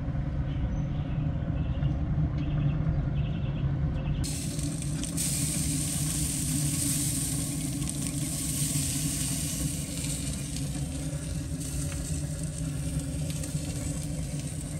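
Steady hiss and sizzle from pork on the hot grates of an open pellet smoker as it is sprayed with a basting liquid, over a low steady rumble. The hiss starts about four seconds in.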